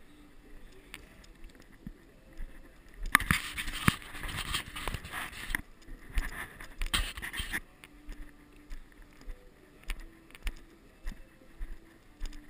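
Footsteps walking at a steady pace, about two steps a second, on paving and gravel. A louder scraping rush breaks in about three seconds in, pauses briefly, then stops about halfway through.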